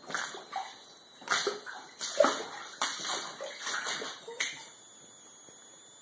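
Boots wading through ankle-deep standing water on a flooded basement floor, a run of uneven splashing steps that stops about four and a half seconds in.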